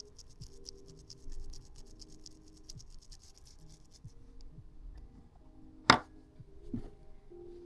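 A small cleaning tool scratching rapidly inside a phone's charging port, scraping out packed dust and lint, stopping about four seconds in. A sharp click follows near the end, then a softer knock.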